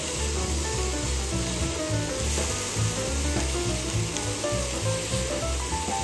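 Slices of hanwoo beef sirloin sizzling steadily in a cast-iron pan. Background music with short melodic notes and a low bass plays over it.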